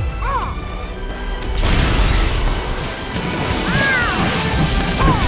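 Crashing, crumbling rock sound effect as the ground breaks apart, starting about one and a half seconds in, over dramatic background music.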